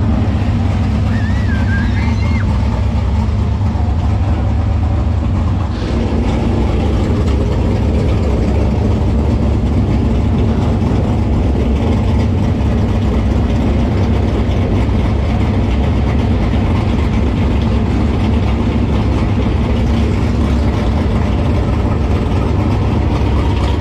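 Race car engine idling steadily.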